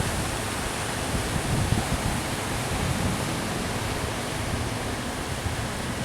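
Steady rush of surf breaking on the beach, with wind buffeting the microphone in low gusts.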